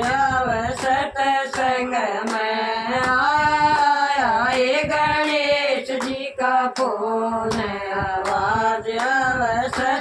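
Devotional group singing of a Haryanvi Ganesh bhajan, the voices holding long, sliding notes, with sharp beats about every three-quarters of a second keeping time.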